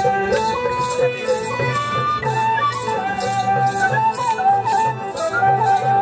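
Traditional Nepali folk music for the Mayur (peacock) dance: a wavering melody line over a steady drum beat, with a rattling percussion stroke about twice a second.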